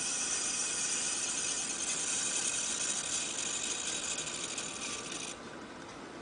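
Battery-powered homopolar motor spinning at high speed, its wire brush rubbing on the spinning tin-can rotor with a steady hissing rattle. About five seconds in the hiss cuts off suddenly as the contact is broken, leaving a quieter whirr of the rotor coasting.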